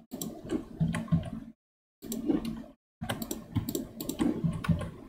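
Computer keyboard keys clicking and tapping, probably with mouse clicks, as Blender hotkeys are pressed. It comes in three short bursts, each cutting off abruptly.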